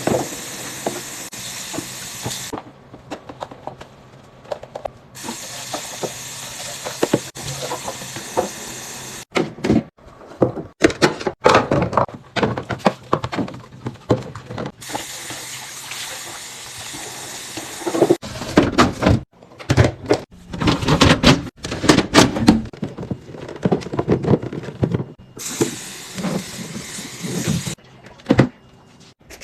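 Food containers and packaging being handled and set down, with clicks, knocks and rustles coming in quick runs, and several stretches of steady hiss that start and stop abruptly.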